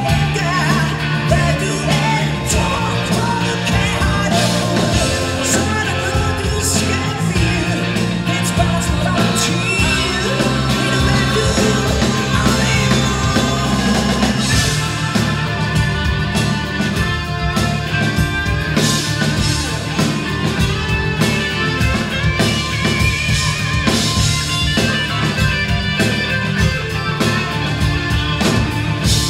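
Live rock band playing loudly: a woman singing lead over electric guitars, bass and a drum kit.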